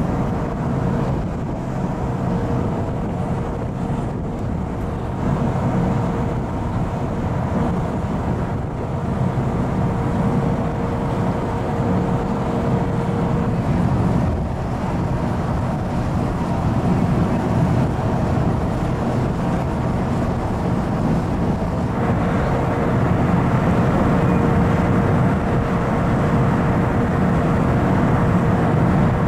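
Steady drone of a car ferry's engines heard from the open deck, a low hum made of several steady tones, over a continuous hiss of wind and rushing water.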